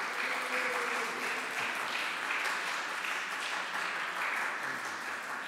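Audience applauding, a steady clapping that begins to die away near the end.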